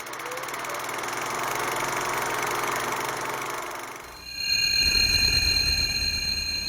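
Ambient music piece: a long breath-like rush of noise swells and fades over about four seconds. Then a sustained bell-like ringing tone with several high overtones comes in over a low rumble.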